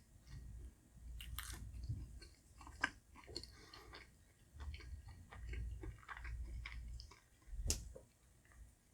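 A person chewing a mouthful of dim sum, with wet mouth clicks and a few sharper crunchy clicks.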